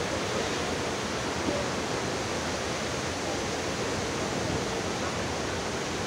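Steady, even rush of Athirappilly Falls, a large waterfall on the Chalakudy River, its water pouring down the cliff.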